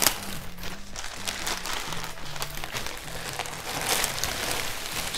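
Grey plastic mailer bag crinkling and rustling as a bulky wrapped parcel is pulled out of it, with irregular crackles throughout. Quiet background music with a low bass line plays under it.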